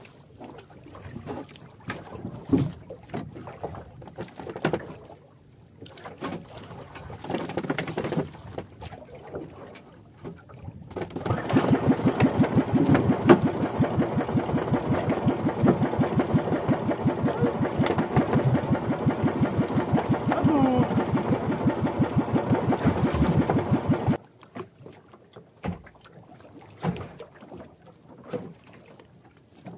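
Small engine of an outrigger fishing banca being started: first irregular knocks and handling noises, then about eleven seconds in the engine catches and runs with a rapid, even chugging pulse for about thirteen seconds before it cuts off suddenly.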